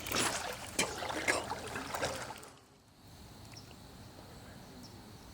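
Water splashing for about two and a half seconds, then cutting off sharply to a faint steady river background.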